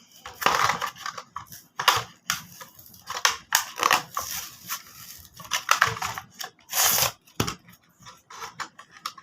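Toy-car blister packaging, a cardboard card with a plastic bubble, being torn and crinkled open by hand: irregular rips and crackling crunches, the loudest about two seconds in and near the seven-second mark.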